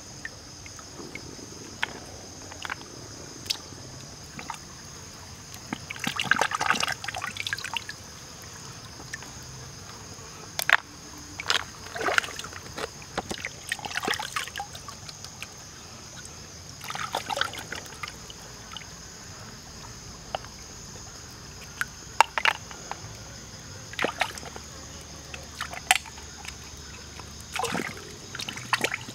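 Hands splashing and sloshing in a shallow stream while picking up freshwater snails, in several short bursts, over the steady rush of the running water. A few sharp clicks and knocks stand out, the loudest of them about two-thirds of the way in.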